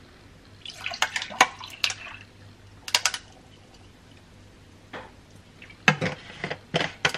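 Cold brew coffee poured from a bottle into a glass mason jar full of ice: liquid splashing with ice cubes clinking against the glass. Near the end, a few sharp clicks as the bottle's cap is twisted back on.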